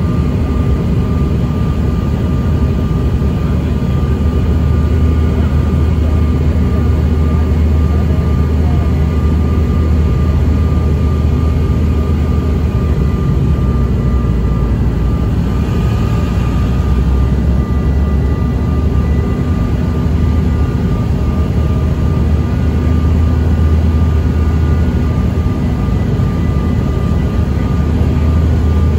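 Cabin noise inside a Bombardier CRJ-900 descending on approach: a steady, loud low rumble from the jet's tail-mounted General Electric CF34 turbofans and the airflow, with a thin steady whine above it.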